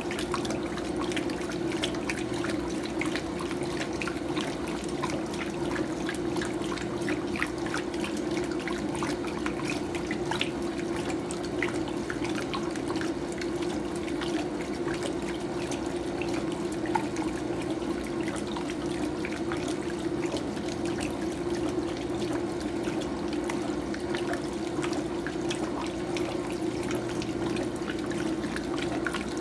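Electrolux Prosdócimo washing machine taking in water for the rinse: a steady, unbroken run of water into the tub with faint crackling splashes.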